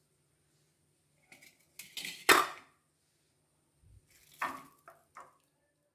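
Kitchen bowls knocking on a countertop: one loud knock with a brief scrape about two seconds in, then three softer knocks later on.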